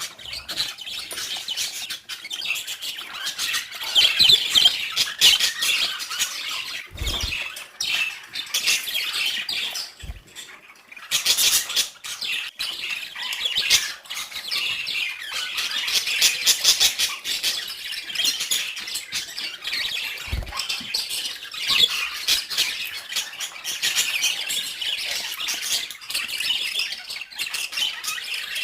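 Budgerigars chattering and squawking continuously in fast, high-pitched warbles and chirps. A few dull knocks are heard at intervals.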